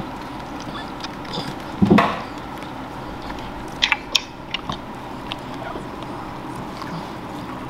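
Newborn Boston terrier puppies nursing at their mother: soft wet suckling and smacking noises with scattered small clicks. A short, low vocal sound about two seconds in is the loudest thing.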